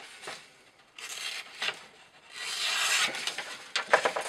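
Chris Reeve Sebenza 21 knife blade slicing through a sheet of paper: two rasping cuts, one about a second in and one around three seconds, followed by a few short knocks near the end. It is a paper-cutting test of how much edge is left after cutting rope, and the blade still bites into the paper.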